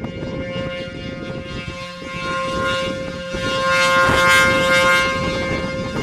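ACA P-15 rotating electromechanical warning siren sounding its steady Alert tone, growing loudest about four seconds in as the turning horn sweeps toward the listener, then easing off. Gusty wind rumbles on the microphone underneath.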